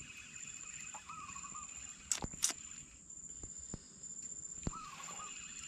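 Insects chirring steadily with a high, pulsing trill. A short wavering call comes twice, and two sharp clicks come about two seconds in.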